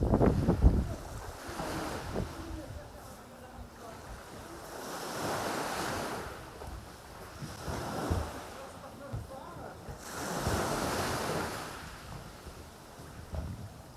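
Sea waves washing onto the beach, two surges that swell and fade about five seconds apart, with wind rumbling on the microphone, loudest in the first second.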